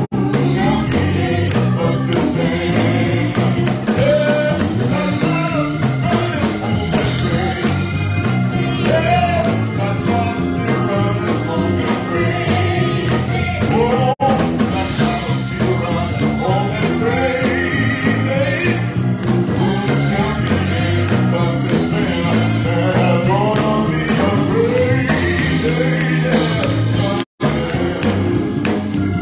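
Gospel music with singing over steady accompaniment. The sound drops out for an instant about halfway through and again near the end.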